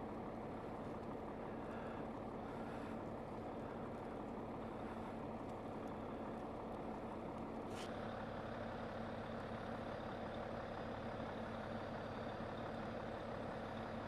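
A vehicle engine runs with a steady hum and a low drone, with one short click about eight seconds in.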